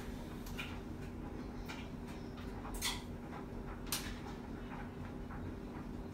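A few sharp clicks or taps, the loudest about three and four seconds in, over a steady low hum.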